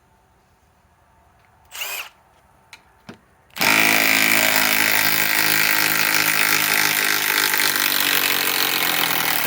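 Cordless compact impact wrench: a brief trigger blip about two seconds in, then from about three and a half seconds a loud, continuous hammering as it backs out a lag bolt, its pitch sagging slightly as it works.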